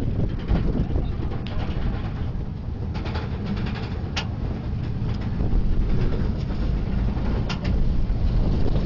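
Roller coaster train in motion heard from a rider's seat: a steady low rumble mixed with wind on the microphone, with a few short sharp clicks.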